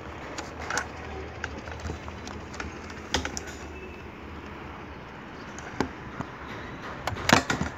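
Small electric motor and propeller of a homemade remote-controlled boat running steadily, with scattered sharp clicks and knocks, the loudest a cluster near the end.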